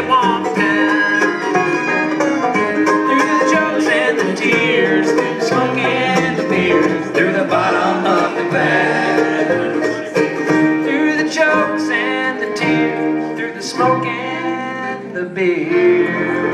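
Live bluegrass band playing: fiddle, acoustic guitar, mandolin, banjo and upright bass together, with a steady stream of quick picked notes over the bass.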